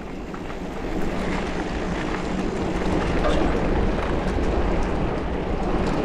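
Wind rushing over the microphone of a mountain biker's camera while riding: an even, low rushing noise that grows a little louder over the first few seconds.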